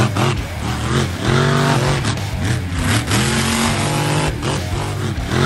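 Monster truck engine revving up and down in repeated surges, with a few sharp crashing impacts about four seconds in as the truck smashes through a wall.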